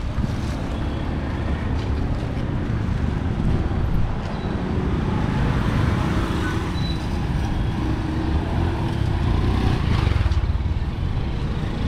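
Steady street traffic noise, a continuous low rumble of passing vehicles.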